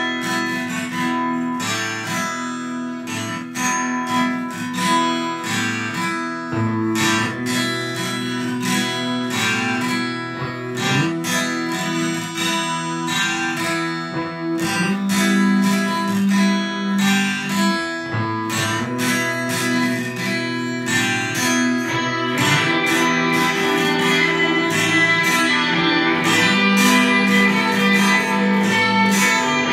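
Instrumental music: a guitar-led intro of plucked and strummed notes. The arrangement grows fuller and brighter about two-thirds of the way through.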